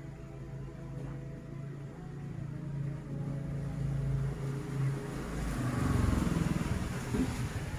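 A motor vehicle engine running with a steady low hum, swelling into a louder rumble about five to six seconds in and easing near the end.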